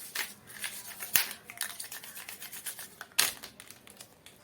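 Colour markers being handled and drawn over paper: short, irregular scratchy strokes and light clicks, with a sharp click a little over a second in and a louder scrape about three seconds in.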